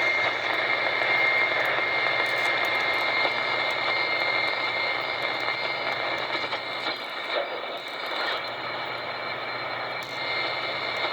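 Portable shortwave radio receiver playing band noise through its speaker: a steady hiss with a constant high whistle of a carrier tone over it, easing slightly after the middle. It sounds like a weak data transmission, which the operator takes for little packet signals.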